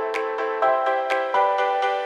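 Background music: a soft electronic melody of held chords that change every half second or so, with a light tick about once a second.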